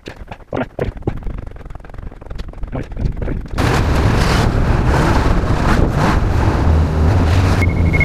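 Two-stroke snowmobile engine running while riding: a lower rumble with scattered rattles and knocks for the first few seconds, then loud and steady from about three and a half seconds in.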